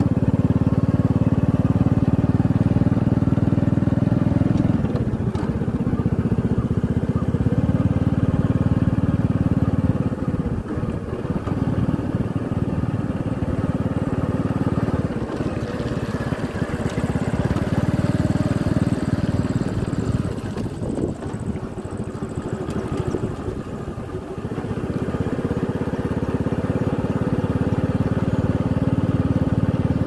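Motorcycle running along a road at riding speed: a steady low engine and road rumble that eases off twice for a few seconds, then builds back.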